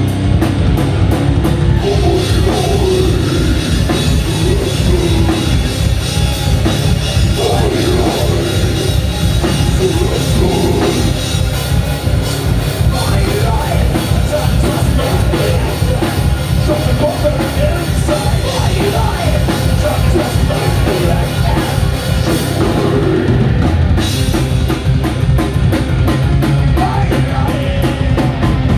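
Live heavy metal band playing: distorted electric guitars, bass guitar and a full drum kit, loud and continuous.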